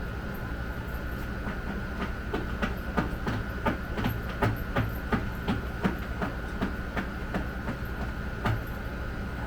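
A run of evenly spaced sharp clicks, about three a second, for about five seconds, with one more click near the end, over a steady hum.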